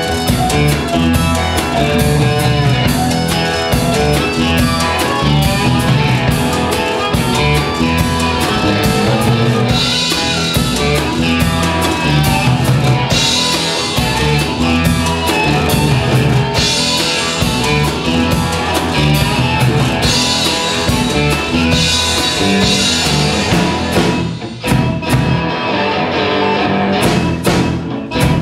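Live blues-rock band playing an instrumental stretch: cigar box guitars and a drum kit, with harmonica cupped against a bullet microphone and amplified. The playing dips briefly and thins out a few seconds before the end.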